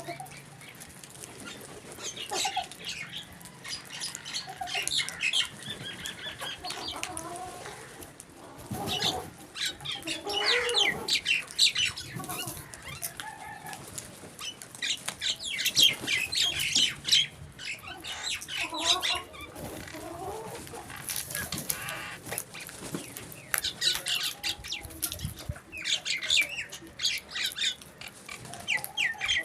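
A flock of crows calling over one another, harsh caws coming in dense bursts every few seconds.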